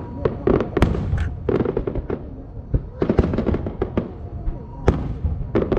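Aerial fireworks bursting in a rapid, irregular series of sharp bangs and crackles over a low rumble.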